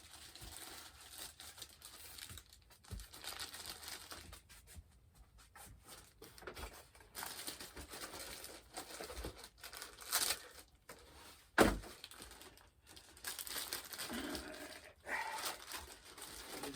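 Plastic packaging crinkling and tearing as a model part is unwrapped, with scattered light knocks and one sharper knock about two-thirds of the way through.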